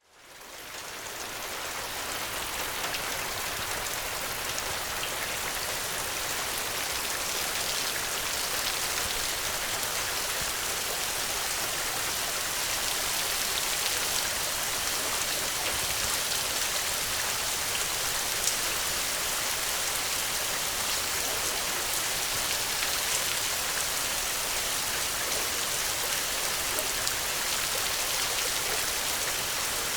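Steady rain falling on a thatched straw roof, a dense even patter with a few individual drops standing out. It fades in over the first couple of seconds, then holds steady.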